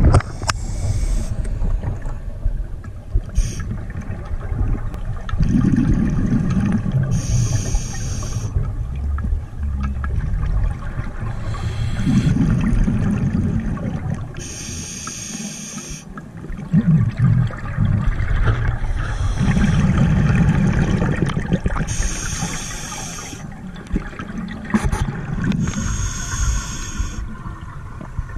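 Scuba diver breathing through a regulator underwater, breath after breath. Each inhalation draws a short hiss of gas and each exhalation releases a low bubbling rumble.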